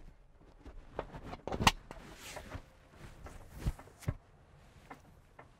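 Truck seatbelt being buckled and checked: the webbing rustles and the buckle latches with sharp clicks, the loudest about a second and a half in and again near four seconds.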